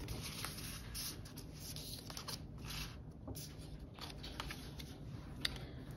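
Soft rustling and sliding of paper and card handled by hand, with a few light taps and a sharper click about five and a half seconds in.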